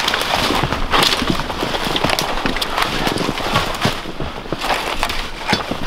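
Footsteps crunching through snow in a run of short, uneven crunches, with brush brushing against clothing.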